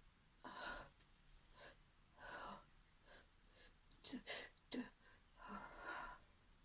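A woman's breathy gasps and sniffs during a sneezing fit, about five in a row, with two short sharp ones a little past halfway: the catching breaths of someone on the verge of sneezing.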